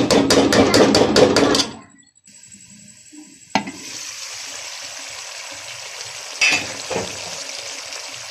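Spatula stirring potato and cauliflower curry in a metal pot, a run of quick scraping strokes against the pan for the first couple of seconds. After a single sharp knock about three and a half seconds in, the simmering curry gives a steady sizzling hiss with a few small clicks.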